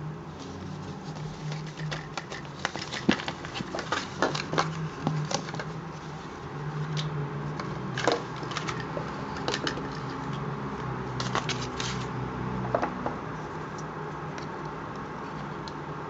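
Hands handling small plastic parts: irregular clicks and crackles of the plastic blister pack and the casings of the small battery-powered LED lights. The clicks come thick and fast for most of the time and thin out near the end.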